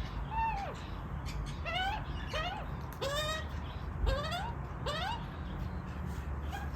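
Australian magpie chicks begging for food: a run of about six short, rising calls, one roughly every second.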